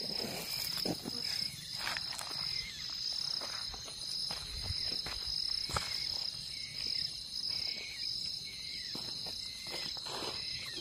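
Crickets chirping in a steady high trill, with a few scattered short clicks.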